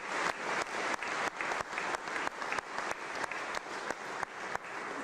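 Crowd applauding, with a few close, sharp claps standing out at about three a second over the general clapping; the applause thins out toward the end.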